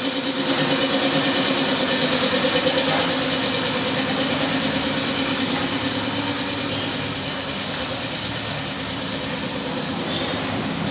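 Air compressor running steadily, a hum with a hiss over it, easing slightly after the first few seconds.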